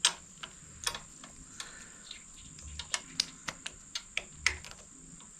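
Irregular sharp clicks and light knocks of the handlebar riser hardware being handled as new riser bushings and the riser bolt are fitted on a Harley-Davidson Softail; loudest right at the start and again about four and a half seconds in.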